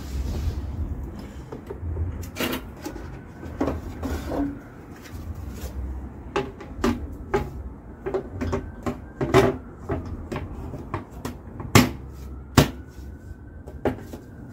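Plastic knocks and clicks as a moulded plastic Batmobile body shell is shifted and pressed down onto a pedal car's metal frame, with two sharp clicks near the end as the hood's snaps catch on their mounts.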